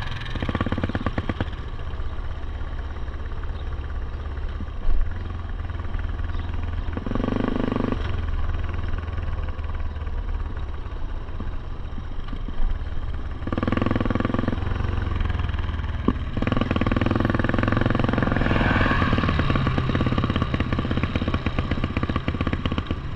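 ATV engine running steadily as the machine rides along a dirt track, its note swelling a few times as the throttle is opened. There is a sharp knock about five seconds in.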